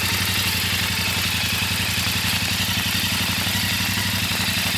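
Royal Enfield Interceptor 650's parallel-twin engine running steadily at low revs, with no revving, under an even hiss of rain and wet road.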